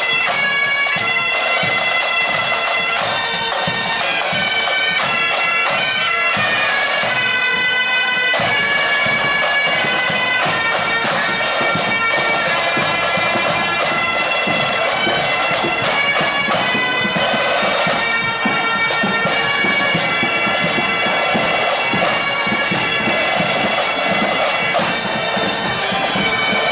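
Pipe band playing a march: Highland bagpipes carry the tune over their steady drone, with snare drums rattling underneath.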